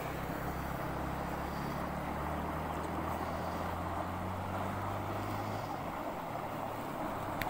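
Steady outdoor rushing noise with a low engine hum underneath that fades away near the end.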